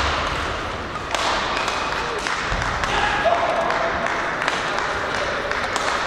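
Badminton hall during play: sharp racket-on-shuttlecock strikes and short shoe squeaks from several courts, over a murmur of voices in a reverberant hall.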